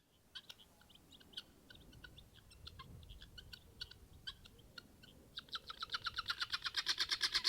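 Birds chirping, faint and scattered at first, then about five seconds in a fast, regular run of repeated calls that gets louder.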